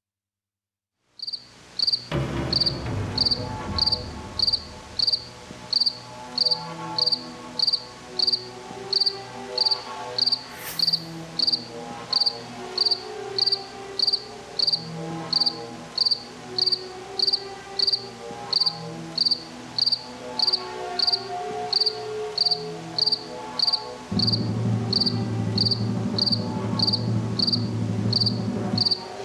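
A cricket chirping steadily, about one and a half short high chirps a second, over a soft low background drone that grows louder near the end.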